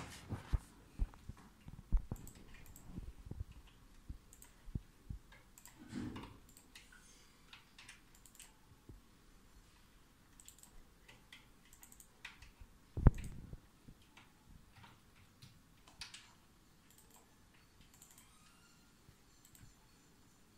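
Paperclips being worked in a desk drawer lock: scattered small metallic clicks and scrapes at irregular intervals as the lock is picked, with one louder knock against the wooden desk about two-thirds of the way through.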